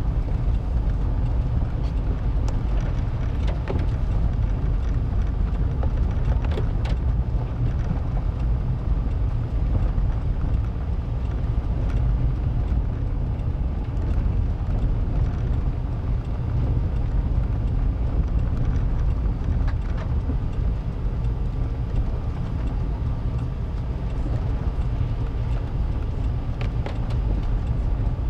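Vehicle driving on a gravel road, heard from inside the cabin: a steady low rumble of engine and tyres on gravel, with a few light clicks.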